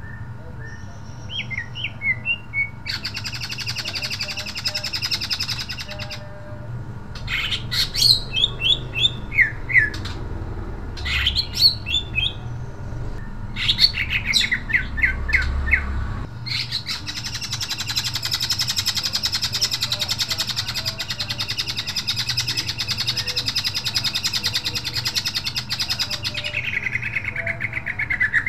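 Male cucak ijo (green leafbird) singing: bursts of sharp, quick chirps and short phrases, then from about halfway a long rapid-fire trill of some ten seconds that ends in a falling note. This is the fast, sharp 'nembak' delivery prized in contest birds.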